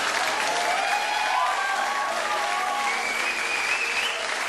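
Studio audience applauding after a stand-up comedian's punchline, with a few voices calling out over the clapping.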